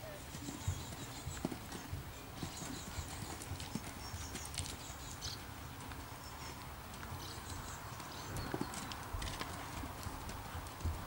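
Hoofbeats of a horse cantering on a sand arena, an uneven run of dull thuds with a few louder ones.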